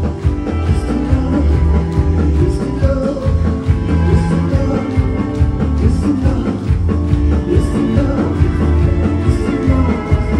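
Live band music played loud through a club PA: a steady beat with heavy bass and sustained keyboard lines, in an instrumental passage with no rapped lines.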